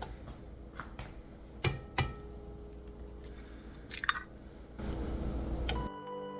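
Egg being cracked on a bowl for waffle batter: two sharp knocks about a second and a half in, then a cluster of small clicks about four seconds in. Background music starts near the end.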